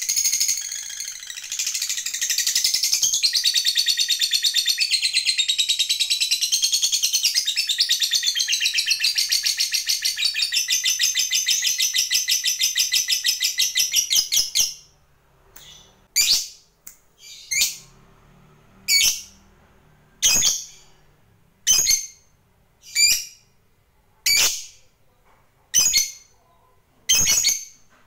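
A lovebird's ngekek: one long, very fast chattering trill lasting about fifteen seconds. It then breaks off into single sharp, shrill calls about every second and a half.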